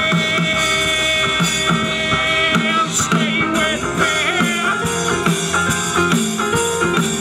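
Live rock band playing: electric guitars over a drum kit and keyboard, with long held notes that bend in pitch.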